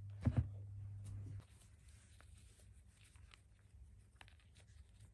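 Sneakers lifted off a shoe rack with a sharp double knock about a third of a second in, over a low hum that stops about a second and a half in; then faint rustles and small clicks of shoelaces being pulled and tied.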